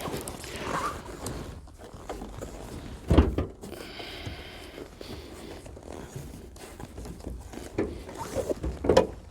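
Footsteps and handling noises around a frozen car as its hood is unlatched and raised, with one loud thump about three seconds in and a few sharper knocks near the end.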